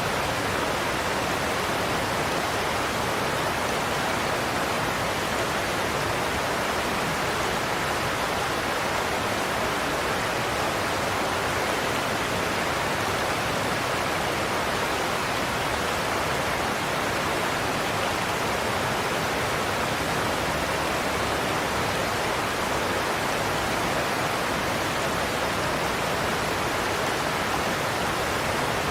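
Godafoss waterfall's falling water, a steady, even rush with no change in level.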